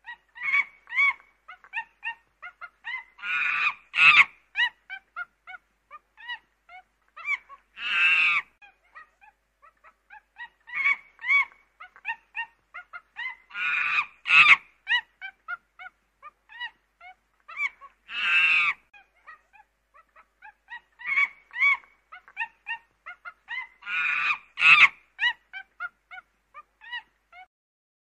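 A flock of domestic fowl calling: a busy run of short calls, with louder, longer honking calls every few seconds. The same sequence repeats about every ten seconds, as a looped recording.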